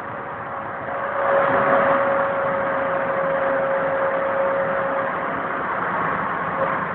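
VTK-24 snow-clearing tram running its sweeping gear: a steady rushing whir like a vacuum cleaner, with a humming tone. It grows louder about a second in, and the tone fades about five seconds in.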